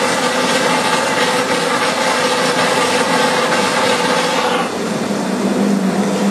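Quadro Ytron Y Jet rotor/stator tank mixer running in liquid while drawing air into the mix: a steady mechanical whir with a bright hiss over it. About four and a half seconds in the sound changes abruptly: the hiss falls away and a lower steady hum remains.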